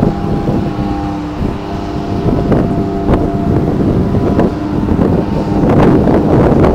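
Long Island Rail Road electric commuter train passing over a level crossing: a heavy rumble with a steady hum and irregular sharp clicks from the wheels on the rails, growing louder over the last second or so.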